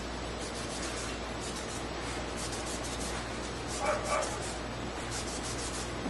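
A washcloth damp with rubbing alcohol rubbing along bicycle spokes in repeated short swishing strokes, wiping off oil and dirt. A brief high whine cuts in about four seconds in.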